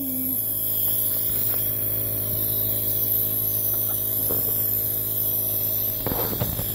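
Nebulizer compressor running with a steady motor hum, with a couple of faint brief rustles.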